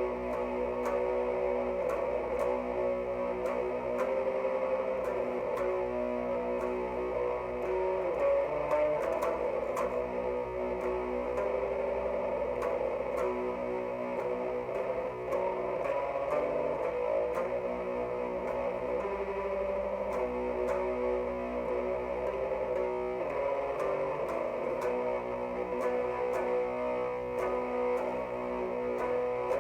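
Distorted electric guitar, a Jackson X Series SCX 3H played through a 3-watt Orange Crush Mini amp boosted by a Boss ODB-3 overdrive, playing a doom-metal riff of held, ringing chords that change every second or two.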